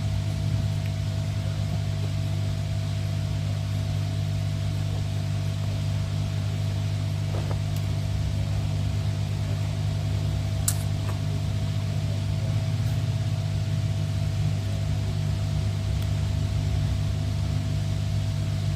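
Steady machine hum, a constant low drone with a fixed higher tone over it, with a few faint small clicks; the sharpest click comes about eleven seconds in.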